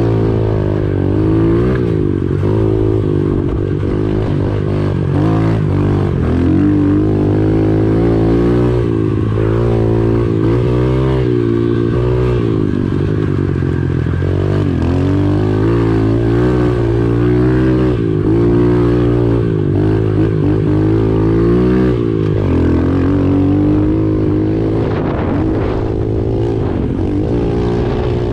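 Pit bike engine revving hard while being ridden along a dirt trail, its pitch rising and falling every second or two as the throttle opens and closes.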